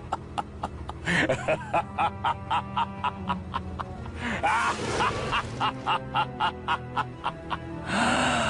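Short musical sound-effect clip with a steady clicking beat of about four clicks a second, with a few brief sliding, voice-like sounds over it.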